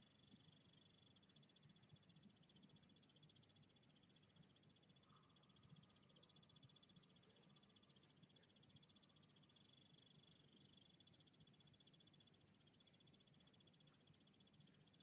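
Near silence: room tone with a faint, steady high-pitched tone.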